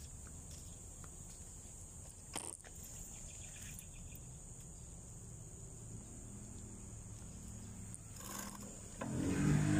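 Steady high-pitched drone of insects over a low rumble, with a single sharp tap about two and a half seconds in. A much louder low sound starts near the end.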